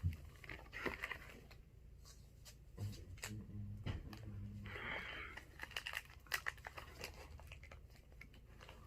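Plastic snack wrappers crinkling and rustling as candy packets are handled and opened by hand, with a short tearing sound about five seconds in.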